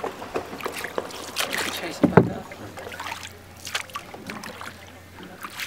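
A small rowboat being rowed with a wooden oar: irregular knocks and water sounds from the strokes, the loudest knock about two seconds in.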